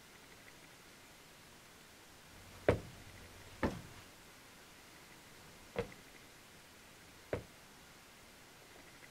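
Four single knocks at uneven gaps of one to two seconds, each a little quieter than the one before.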